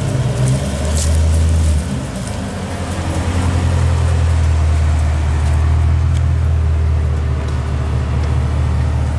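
2010 Camaro SS's 6.2-litre LS3 V8, breathing through long-tube headers and an MBRP exhaust, idling with a deep, steady exhaust drone. The pitch steps down slightly about two seconds in.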